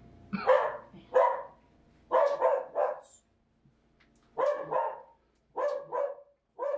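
Dogs barking, a little way off, in quick groups of one to three barks roughly every second.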